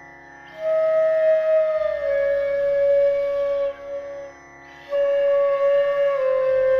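Background instrumental music: a slow melody of long held notes over a steady low drone. The melody pauses briefly at the start and again about four and a half seconds in.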